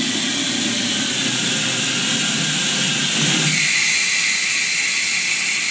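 Small jet engine rig giving a steady, loud rushing hiss. About three and a half seconds in, the low rumble beneath it fades and the hiss turns higher.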